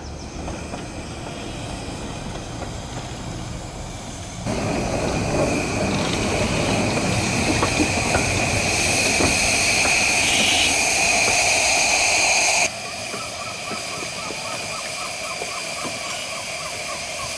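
15-inch-gauge miniature steam locomotives standing at a station with steam hissing. About four seconds in the sound jumps louder to a strong hiss with a steady high tone. Near the end it drops back to a quieter hiss with a regular ticking.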